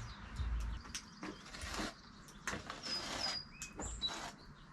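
Birds chirping with a few short high whistled notes, over scattered light clicks and knocks.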